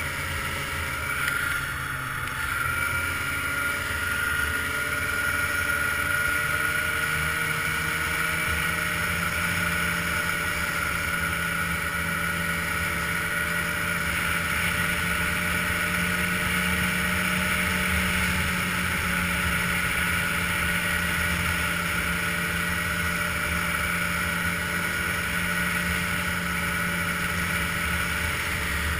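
Ski-Doo touring snowmobile's engine running steadily at cruising speed on a groomed trail, heard from the rider's seat. The engine note dips briefly about two seconds in, then picks back up and holds.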